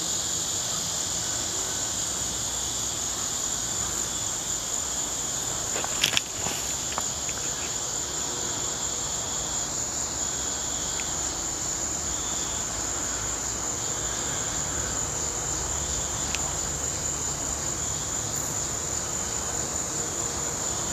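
Crickets chirping in a steady, continuous high chorus, with one brief knock about six seconds in.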